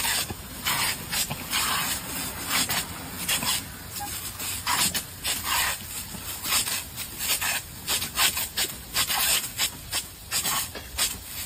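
Irrigation sprinkler's water jet spraying and splattering in uneven hissing bursts, about one or two a second.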